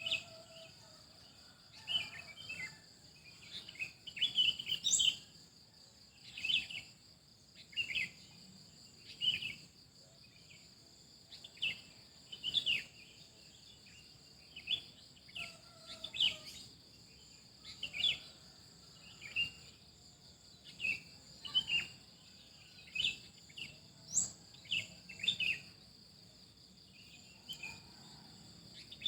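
Songbirds chirping in short, quick calls about once a second, a few sweeping sharply upward, over a steady high-pitched insect drone.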